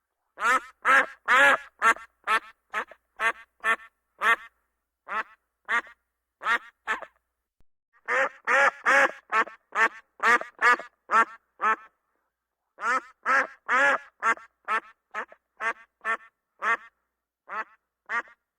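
A duck quacking: a run of short calls, about two a second, with a couple of brief pauses along the way.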